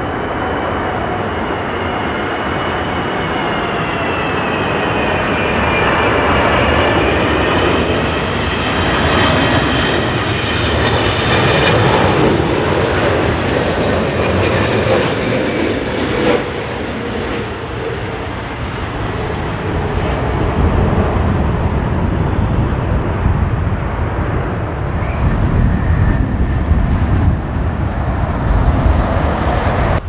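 Boeing 777 jet airliner flying low overhead on final approach with gear down: a loud steady jet rumble with a wavering fan whine whose pitch slides down as it passes about halfway through. In the last third it turns into a heavier low rumble.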